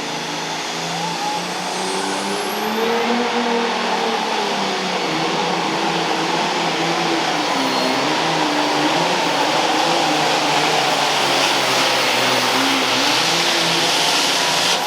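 Super Farm class tractor's turbocharged diesel engine running hard under full load while pulling the sled, its pitch wavering up and down. It grows louder about two seconds in.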